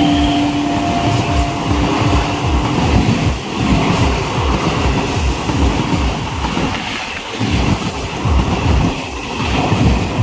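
Suburban EMU local train coaches rushing past close by: a loud rumble with a rapid, rhythmic clatter of wheels knocking over the rail joints. The tail of the train's horn dies away in the first three seconds.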